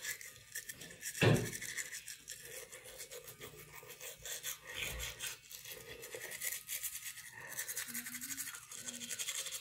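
Toothbrush scrubbing teeth: quick, continuous rubbing strokes of the bristles, with one sharp thump a little over a second in.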